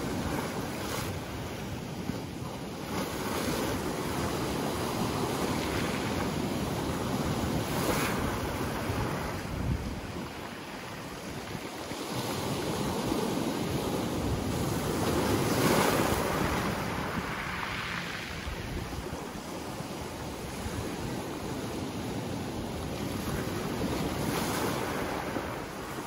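Sea waves breaking around boulders and washing up over a pebble beach: a continuous rushing surf that swells and ebbs, dipping a little before the middle and loudest about two-thirds of the way through.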